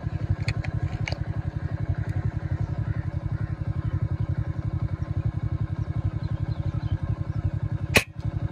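Motorcycle engine idling steadily with a fast, even pulse. A single sharp crack about eight seconds in.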